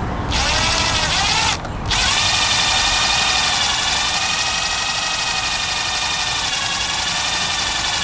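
Cordless drill whining as it bores a small hole through a black plastic cover. It spins up with rising pitch just after the start, stops briefly before two seconds, then runs steadily with slight changes in speed.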